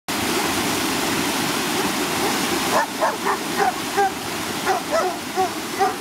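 Rushing water of a small stream waterfall pouring over rocks. About three seconds in, dogs start barking over it, quick repeated barks at roughly three a second.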